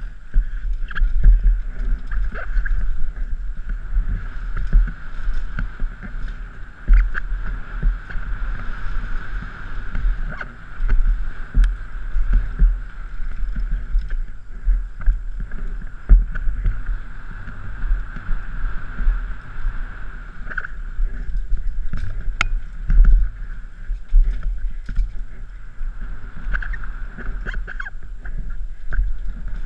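Downhill mountain bike descending a rough dirt trail, heard from a helmet-mounted camera: a steady rush of wind and rolling rumble, with frequent knocks and rattles as the bike hits roots and rocks, a few of them loud jolts.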